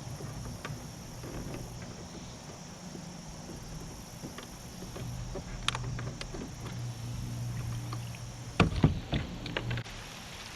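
Handling noises as fish-cleaning gear is set out: a single click about halfway through, then a quick run of sharp knocks about nine seconds in, over a steady low rumble.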